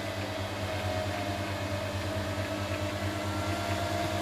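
Steady hum of a 1 kW VHF linear amplifier's cooling fan running while the amplifier sits idle, not transmitting, with a faint steady whine above the hum.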